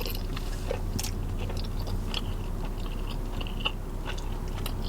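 A person chewing and biting soft food (sausage, egg and cheese), with wet mouth smacks and clicks close to the microphone, over a steady low hum.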